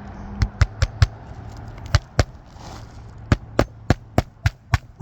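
Hammer striking repeatedly on a roof: a few quick blows, a pause, then a steady run of about three to four blows a second, over a low steady hum.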